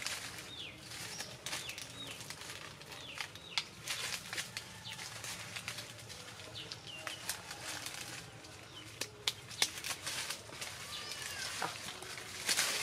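Dry fallen leaves crackling and rustling under feet and hands as people move and pick through leaf litter, in many brief sharp crunches. Short falling bird chirps sound now and then in the background.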